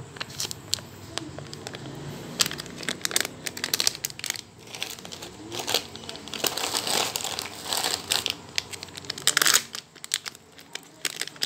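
Plastic packaging bags crinkling and rustling as they are handled, in irregular crackles that get busier from about six seconds in.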